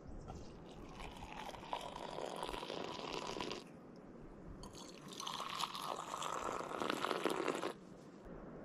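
Liquid poured from a camping kettle for coffee, in two pours of about three seconds each with a short pause between; the second pour is louder.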